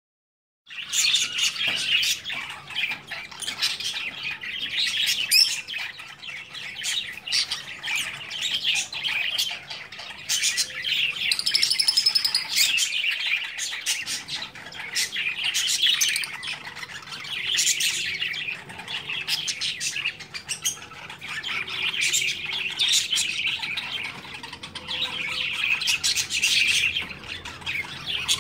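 Lovebirds chirping in a rapid, continuous stream of high-pitched calls, starting abruptly just under a second in.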